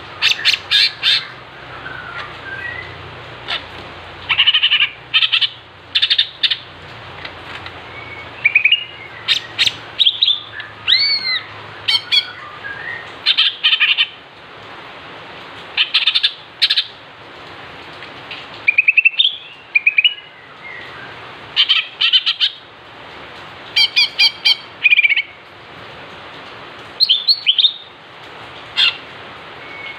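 Green leafbird (cucak ijo) singing in loud, sharp chattering bursts every second or two, with short gliding whistles in between. This is a provoking lure song (pancingan) used to set other leafbirds calling.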